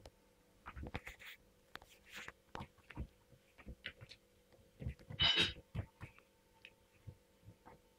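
A kitten playing on a carpet under a lace cloth: irregular soft thumps, taps and scratches from its paws and the cloth, with a louder scratchy rustle a little past five seconds in. A faint steady hum runs underneath.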